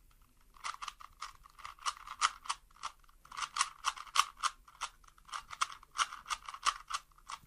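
A Rubik's cube being twisted by hand: a quick, irregular run of small plastic clicks as its layers are turned, starting about half a second in.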